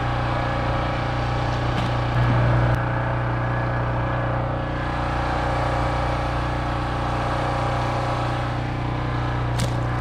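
A small engine running at a steady speed, a constant droning hum that swells briefly about two seconds in.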